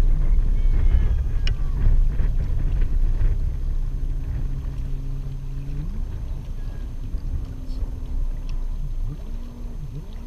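A boat engine runs steadily and rises in pitch about six seconds in, over heavy wind rumble on the microphone.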